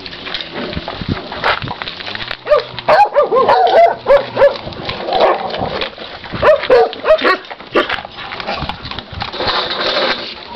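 Several dogs yipping and whining in quick, short rising-and-falling calls, in two runs about three and about six and a half seconds in, over a steady clatter of clicks and rustling.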